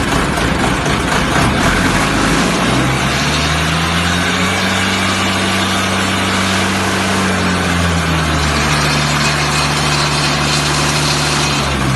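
Diesel engine of a concrete pump running after start-up. Its speed rises a few seconds in, holds, then settles a little lower about eight seconds in.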